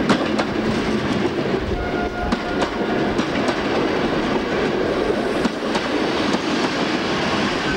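A passenger train hauled by a DB class 215 diesel-hydraulic locomotive rolling past at low speed. Its coach wheels click over the rail joints, with a brief tone about two seconds in.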